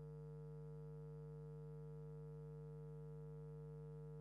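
Steady electrical hum with a buzzy stack of overtones, unchanging throughout, typical of mains hum in a sound system or recording chain.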